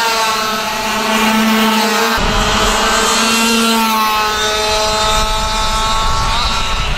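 Racing kart engines running at high revs, their pitch falling and rising as they slow and speed up, with more than one engine heard at once. A low rumble comes in about two seconds in.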